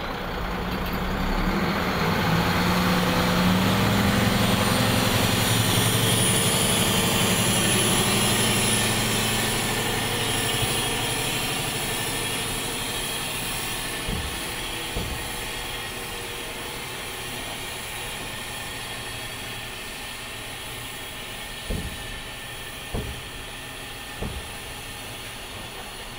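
Diesel engine of an 18-wheeler semi-truck running as it drives slowly past onto a ferry ramp, loudest in the first ten seconds and then fading away. Later come a few sharp clunks, two close together and then three about a second apart, as its wheels roll over the ramp.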